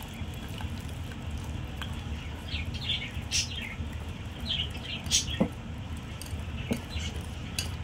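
Wire whisk beating thick biscuit batter in a glass bowl, over a steady low hum, with short high chirps scattered irregularly through it.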